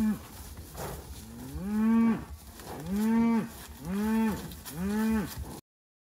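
Hereford cattle mooing: four drawn-out moos about a second apart, each rising then falling in pitch.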